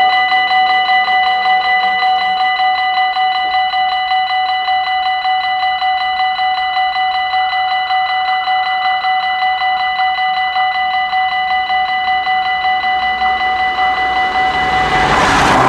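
Dutch level-crossing warning bell ringing in a rapid, steady pulse of bright tones. Near the end, the rumble of an approaching train rises beneath it.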